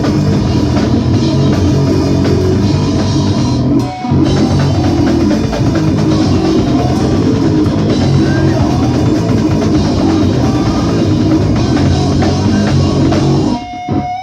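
Live rock band playing loud, with drum kit and distorted electric guitar, breaking for a moment about four seconds in. Near the end the band cuts off, leaving a guitar ringing.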